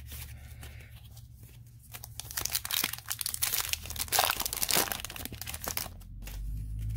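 Foil wrapper of a Yu-Gi-Oh booster pack crinkling and tearing as it is ripped open by hand: a dense crackle from about two seconds in that stops just before the end.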